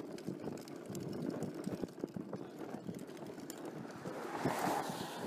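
Wind buffeting the microphone and road rumble from a vehicle moving along a wet road, with scattered light knocks and a swell of hiss about four and a half seconds in.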